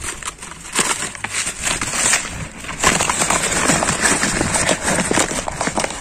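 Brown paper bag crinkling and rustling loudly as it is handled and opened to take a bird out, full of sharp crackles.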